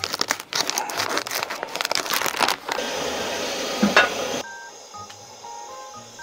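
Dense crackling for about two and a half seconds, then an even hiss that cuts off abruptly about four and a half seconds in, leaving soft background music with a light plucked melody.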